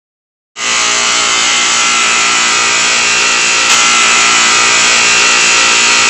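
Outdoor air-conditioner condenser unit running very loudly: a harsh, steady mechanical whir with a thin whine, starting suddenly about half a second in. The racket marks it as an overly noisy air conditioner.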